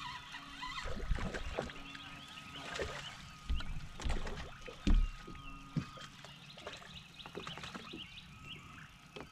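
Knocks and bumps on the deck of a fiberglass bass boat as an angler kneels and fights a crappie to the side, with water splashing and lapping at the hull. The loudest knock comes about halfway through, and a faint steady whine runs underneath.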